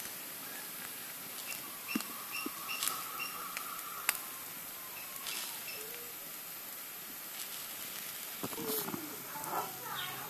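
Grated potato and egg frying on a hot iron griddle: a light, steady sizzle with a few sharp crackles. Short high chirps sound in the first half, and a pitched call with gliding notes comes in about eight seconds in.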